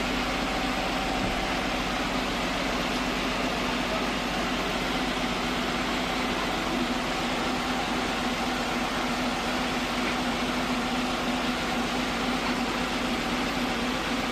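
Sawmill machinery running steadily: a constant mechanical hum at one unchanging pitch under an even noise, with no change in load.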